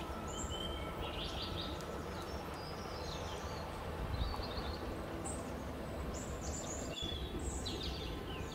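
Small birds chirping with many short, high calls scattered throughout, over a steady low background rumble.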